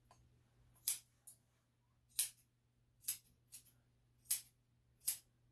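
Grooming scissors snipping a dog's leg fur: about seven short, sharp metallic snips at uneven intervals.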